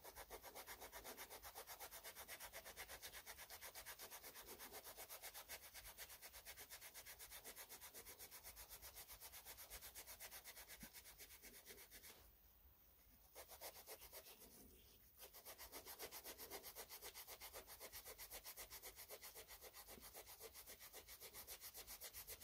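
Green abrasive scouring pad scrubbed back and forth in quick, even strokes over the rusty slideways of a small metal lathe, wiping off rust residue loosened by rust-dissolver gel. Faint, with two brief pauses past the middle.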